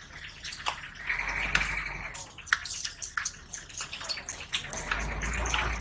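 A cleaver tapping and knocking on a wooden chopping block as a rohu fish head is cut into pieces: a run of short, sharp knocks at an uneven pace. A short hissing noise comes about a second in.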